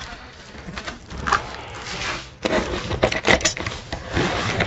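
Large cardboard carton being opened with a box cutter: the blade scraping along the edge and the cardboard flaps rustling, with scattered short clicks and a few sharper ones a little over three seconds in.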